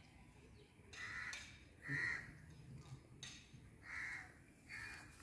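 A crow cawing faintly four times, with short pauses between the caws.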